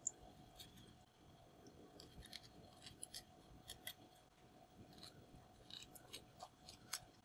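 Kitchen scissors snipping through raw squid, tentacles and then the mantle being cut into rings: a faint, irregular string of short snips and blade clicks, about a dozen in all.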